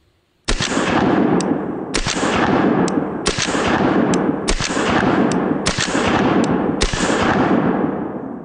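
A string of about eleven shots from a compensated Staccato 2011 9mm pistol, fired at an uneven pace, with a heavy rolling boom that fills the gaps between shots and fades out after the last one.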